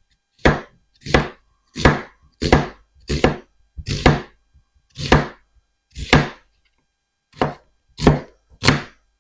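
Kitchen knife chopping a sweet onion on a cutting board: eleven separate strokes, at first about one every two-thirds of a second, then slowing to about one a second.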